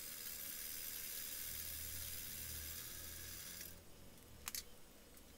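Faint steady hiss of room tone that cuts off abruptly about two-thirds of the way through, followed by a couple of faint clicks.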